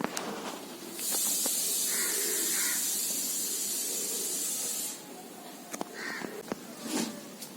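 Domestic cat hissing: one long, steady hiss of about four seconds, starting about a second in and cutting off abruptly. It is a cat's defensive warning.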